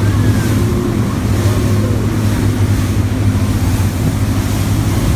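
Motorboat with triple outboard engines running at speed: a steady engine drone under the rush of the wake and wind on the microphone.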